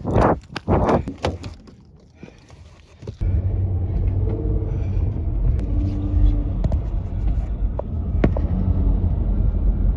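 Footsteps on a hard hallway floor, a step about every half second, stopping about a second and a half in. After a short hush, a steady low rumble starts suddenly about three seconds in and carries on.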